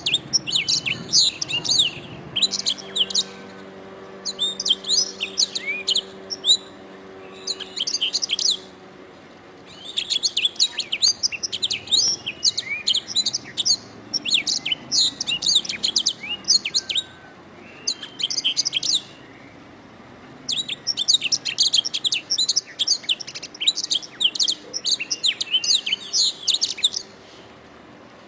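Domestic canary singing long, rapid rolling trills and warbles in phrases of several seconds, broken by brief pauses.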